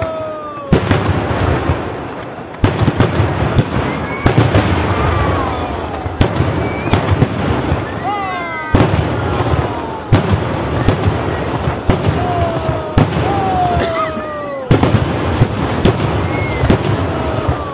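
Fireworks display going off: dense volleys of sharp bangs and cracks, several a second. A fresh volley starts suddenly every few seconds after a brief lull.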